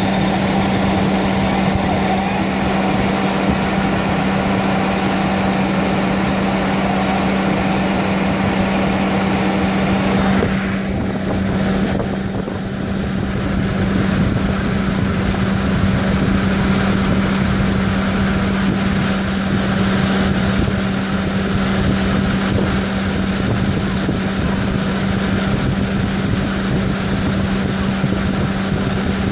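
Ford Crown Victoria Police Interceptor's 4.6-litre V8 idling steadily, with a strong, even hum.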